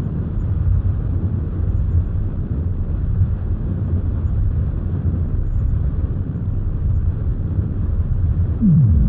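Sound-effect rumble of the redirected nuclear missile: a loud, steady low rumble, with a short tone sliding down in pitch near the end.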